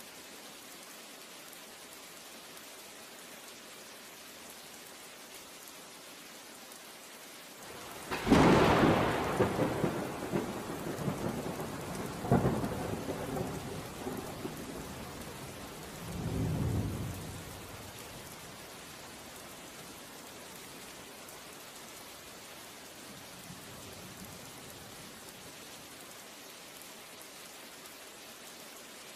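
Steady rain, with a sudden clap of thunder about eight seconds in that rumbles on, swelling twice more, and fades out over about ten seconds.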